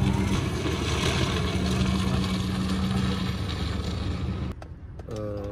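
A motor running steadily with a low hum, which cuts off abruptly about four and a half seconds in. A short vocal sound follows near the end.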